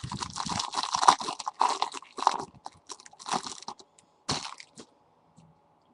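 Glossy trading cards being handled and slid against each other as they are flipped through, a dense run of rustling scrapes over the first two seconds, then three shorter ones about a second apart.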